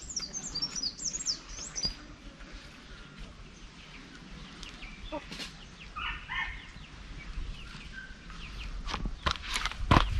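Small birds chirping: a quick run of short high chirps in the first couple of seconds, then a few lower calls about six seconds in. A few sharp clicks come near the end.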